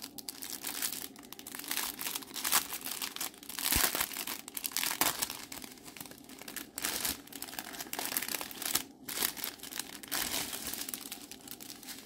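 Thin clear plastic bags crinkling as they are handled: a small zip-lock bag of diamond-painting drills is pulled from a larger clear plastic bag. The result is an irregular run of rustles and crackles.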